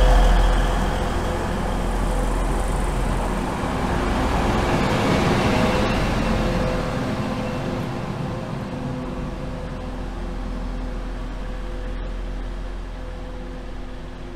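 TransPennine Express Class 185 diesel multiple unit's Cummins engines running as the train moves off along the platform, a low rumble with several steady engine tones that gradually fades.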